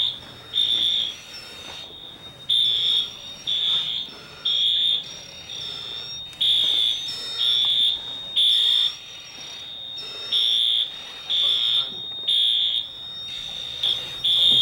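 Building fire alarm sounding a high-pitched evacuation signal: beeps of about half a second each in groups of three, each group repeating about every four seconds.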